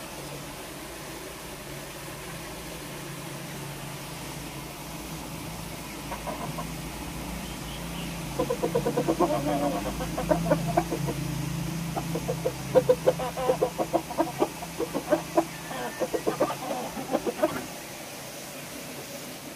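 Gamefowl chickens clucking in a fast run of short clucks that starts a few seconds in and lasts about ten seconds, over a steady low hum.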